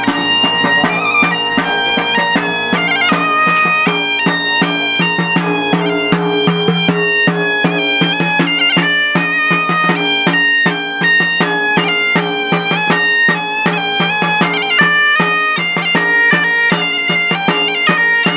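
Asturian bagpipe (gaita) playing a quick melody over a steady drone, with a side drum beating along.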